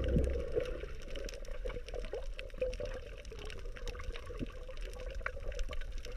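Underwater water noise: a steady wash with scattered small clicks, crackles and bubbling blips.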